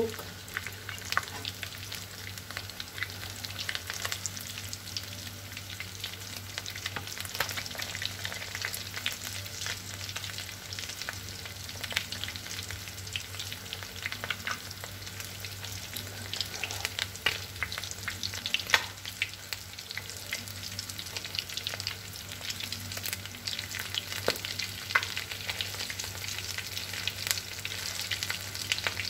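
Breaded tuna and cauliflower balls shallow-frying in hot sunflower oil in a steel pan, sizzling and crackling steadily with frequent sharp little pops, over a low steady hum.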